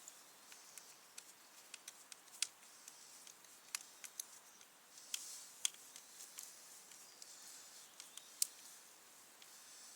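Scattered light clicks and taps of small parts being handled while a brush cutter's handle and throttle cable assembly are fitted, the sharpest about two and a half and eight and a half seconds in.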